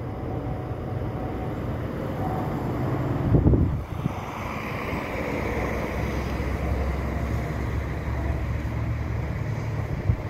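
Distant rumble and rising hiss of an approaching freight train hauled by an electric locomotive, with wind buffeting the microphone. A strong gust comes about three and a half seconds in.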